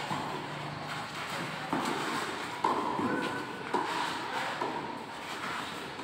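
Tennis ball being struck by rackets and bouncing on the court during a doubles rally: a string of sharp pops about a second apart, echoing in a large hall.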